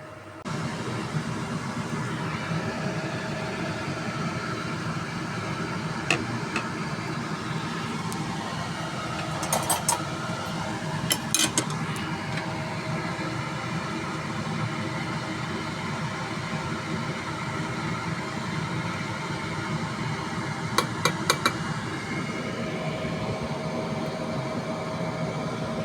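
A steady mechanical hum and rush that comes on suddenly, with a few short clinks scattered through it, some in quick clusters.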